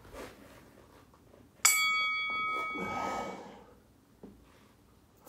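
A single bell-like metallic ring starts sharply about a second and a half in and dies away over about a second and a half. A short breathy rush of noise follows it.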